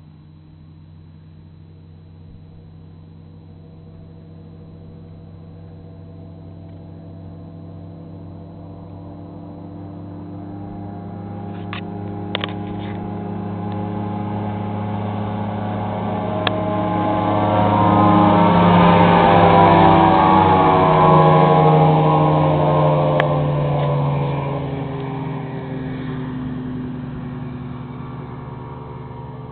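Mercury 250 Pro XB outboard on a Cobra Viper 201 bass boat running flat out at about 70 mph in a fly-by. Its engine note grows steadily louder as the boat approaches, is loudest a little past the middle, then drops in pitch and fades as the boat passes and runs away.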